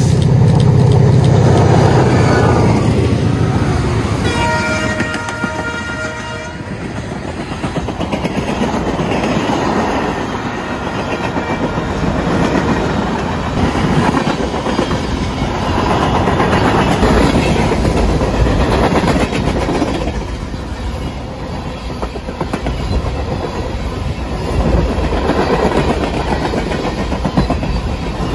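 BNSF diesel freight train passing close by: the locomotive's horn sounds at the start and again about four seconds in while the engine's low drone goes past. After that the freight cars roll by steadily, their wheels clattering over the rail joints.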